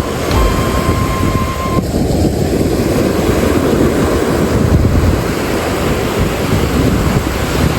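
Wind buffeting the microphone over the wash of sea water at the harbour. A held note of background music ends about two seconds in.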